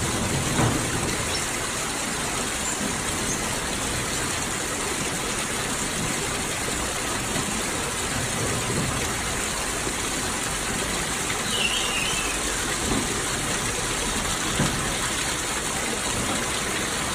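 Steady rushing of running water, an even hiss with no breaks, and one brief high chirp near the end.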